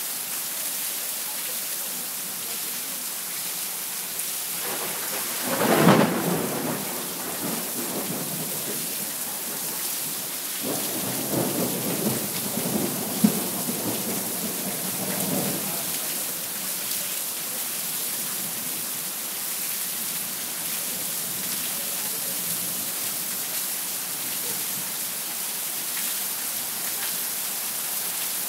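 Heavy thunderstorm rain falling steadily. A loud thunderclap comes about six seconds in, then a longer rumble of thunder from about eleven to sixteen seconds with a single sharp snap in the middle of it.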